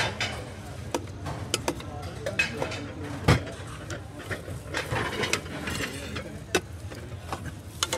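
A metal ladle clinking and knocking against steel milk cans as it is dipped in and lifted out, a string of sharp irregular clicks with one louder knock about three seconds in, over a steady low street-stall hum.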